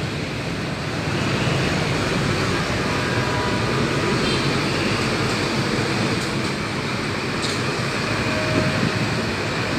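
Steady street traffic noise at a busy road intersection.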